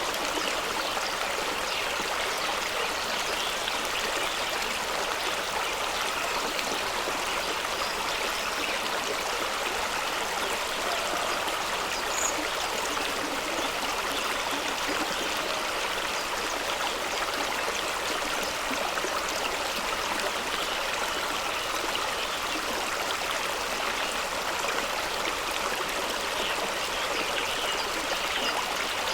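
Fast-running stream of water rushing and splashing over rocks, a steady, even rush.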